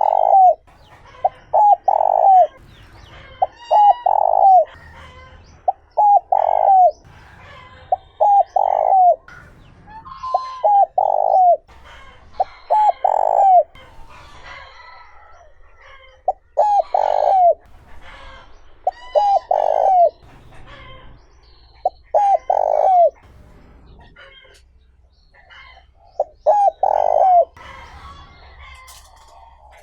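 Spotted dove's cooing song: repeated coo phrases, each a few quick short notes ending in a longer drawn note, coming about every two to three seconds. Other small birds chirp faintly in the background.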